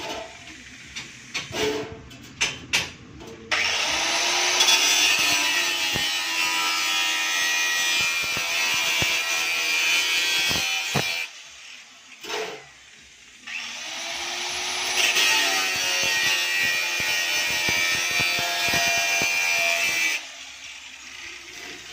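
Handheld angle grinder cutting a thin metal sheet in two long passes of several seconds each, with a short pause between them. A few short bursts and knocks come first.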